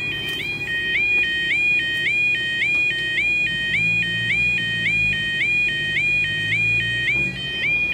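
Level crossing warning alarm (the 'yodel' audible warning device) sounding: an electronic two-tone warble that steps between a lower and a higher tone about twice a second.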